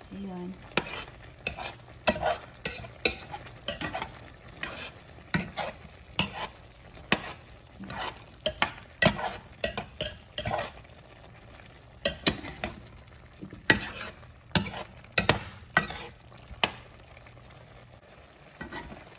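A spoon scraping and knocking against a square nonstick pan in irregular strokes, stirring chicken, potatoes and carrots in a sauce that is boiling. A steady low hum underneath stops near the end.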